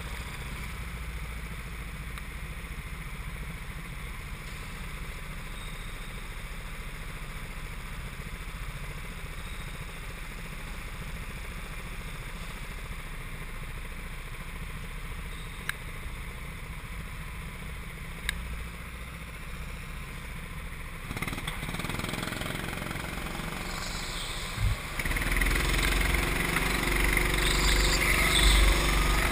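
Rental go-kart's small petrol engine idling steadily, heard from on board the kart, then revving up and pulling away a few seconds before the end, louder from there on.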